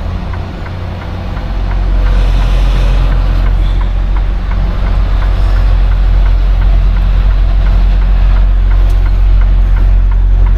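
Semi truck's diesel engine running at low speed through a tight U-turn, a steady low rumble that grows louder about two seconds in.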